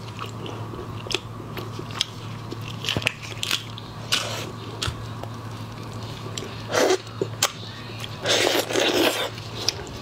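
Raw red prawn being peeled by hand in plastic gloves, close up: the shell crackles and snaps in a run of small clicks, with a few louder crackling, squishy bursts in the second half as the head and shell are pulled apart.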